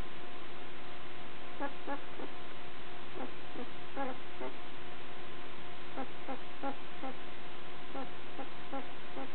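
A newborn puppy squeaking and whimpering in short, high, pitched calls, in four bouts of a few squeaks each, a couple of seconds apart.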